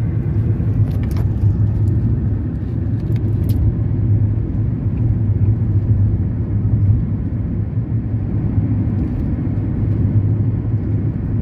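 Steady road and engine noise of a car driving at speed, heard from inside the cabin: an even, low hum.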